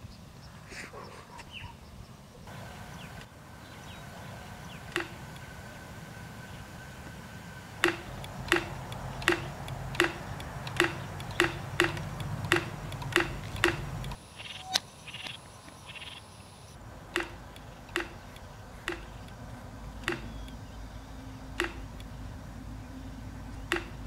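Bamboo windmill bird scarer knocking as its propeller turns in the wind, a small striker hitting the bamboo frame. The knocks come evenly about two a second, then slow to one every second or so after about fourteen seconds.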